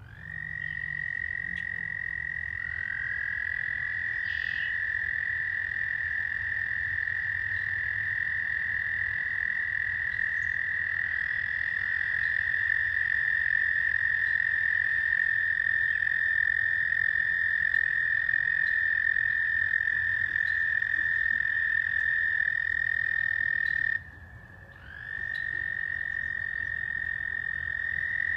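A chorus of frogs giving long, steady, high-pitched trills that overlap one another, new voices joining a few seconds apart. The chorus breaks off for about a second near the end, then starts again.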